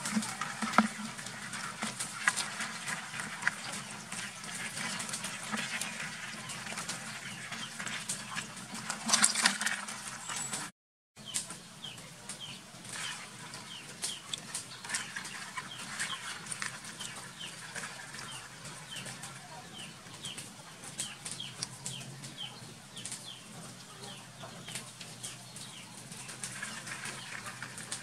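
Chickens clucking, with chicks peeping: a run of short, high, falling chirps through the second half. In the first part, clicks and scrapes come from a monkey's paw stirring live crabs in a plastic bucket of water, with a louder burst about nine seconds in. The sound cuts out briefly about eleven seconds in.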